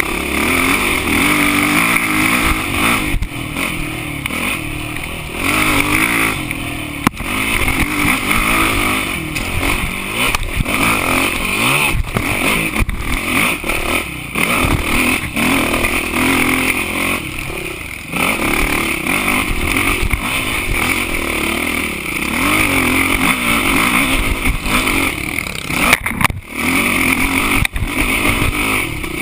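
Dirt bike engine under way, revving up and falling back repeatedly as the rider works the throttle, with occasional knocks from the rough ground.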